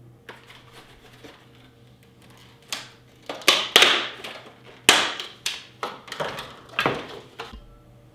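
Rigid plastic blister packaging crackling and snapping as it is pulled apart by hand: faint crinkles at first, then about ten sharp, loud cracks, loudest in the middle, stopping shortly before the end.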